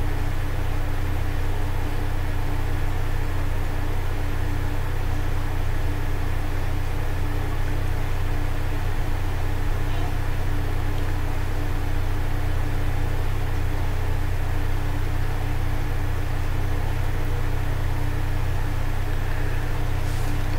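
Steady low machine hum with a faint steady tone above it and an even hiss, unchanging throughout.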